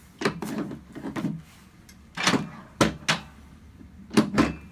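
Chiropractic treatment table being straightened: a series of clunks and knocks as its sections are moved, in three bursts, just after the start, around two to three seconds in, and near the end.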